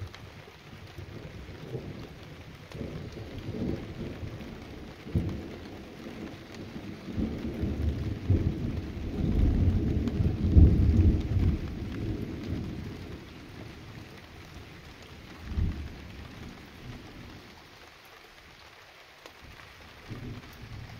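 Thunder rumbling: a long roll that builds to a peak about ten seconds in and fades, with shorter rumbles around five and fifteen seconds, over a steady hiss of rain.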